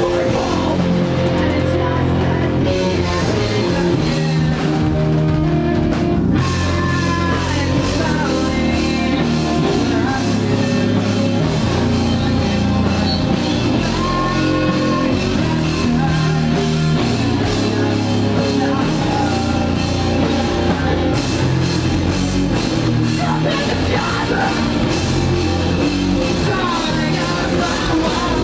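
Live rock band playing loud heavy rock on electric guitars, bass guitar and drum kit.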